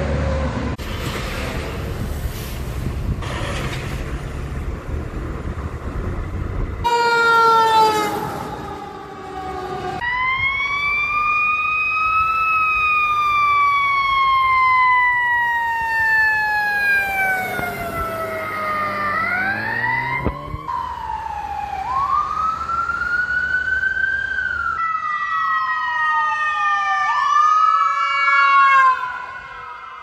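A heavy flatbed semi truck rumbles past on a highway. It is followed by emergency-vehicle sirens: a fast warbling yelp, then a slow wail that rises and falls over several seconds, and near the end two sirens sweeping over each other.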